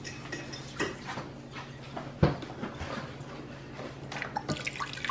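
Wooden spoon stirring rice in broth in a rice-cooker pot: wet sloshing and drips with small clicks of the spoon on the pot, and one sharp knock about two seconds in. Near the end, liquid starts pouring into the pot.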